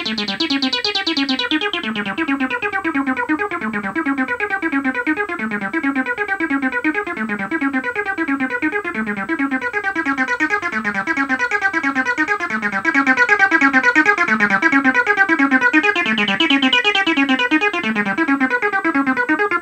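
Roland TB-03 bass-line synthesizer playing a fast repeating sequenced pattern of short notes while its knobs are turned by hand. The tone darkens about two seconds in and brightens again near the end.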